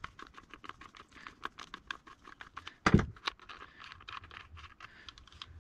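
A screwdriver turning a long chain-adjuster screw out of a chainsaw: a run of small, irregular clicks and scratches, with one louder knock about three seconds in.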